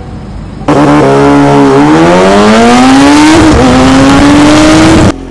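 Kawasaki Ninja ZX-6R inline-four sport motorcycle with a decat stock exhaust accelerating hard, the engine note climbing steadily through the revs with a gear change about three seconds in. Very loud; it cuts in abruptly about a second in and stops abruptly near the end.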